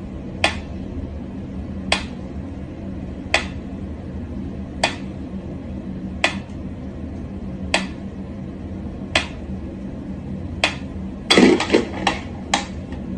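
Mechanical pyramid metronome ticking at a slow tempo, one sharp tick about every one and a half seconds over a low steady hum. Near the end comes a louder clatter of several quick knocks as a cat paws at the metronome.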